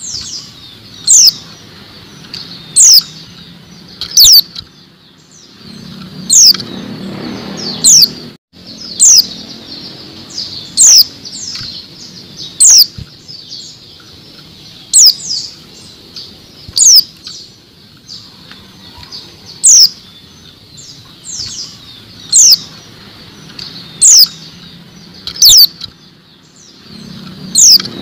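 Female pleci (white-eye) calling: a single sharp, high note sliding downward, repeated every one and a half to two seconds, the lure call used to get male white-eyes singing. Soft wing flutters and rustling come in between, most clearly around six seconds in and again near the end.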